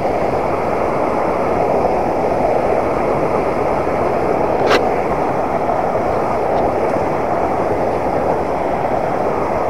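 Fast-flowing white water rushing over rocks in a small river, a steady even rush throughout. One short click about five seconds in.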